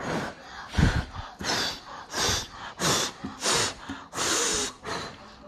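A child blowing hard through pursed lips into a sheet of slime to inflate it into a bubble: a run of about six short breathy puffs, the last one longer, with a low thump of breath on the microphone about a second in.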